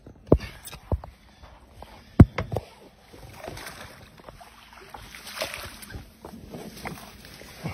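Water splashing and sloshing as a plastic bag is hauled out of the water with a pole, after a few sharp knocks, the loudest about two seconds in.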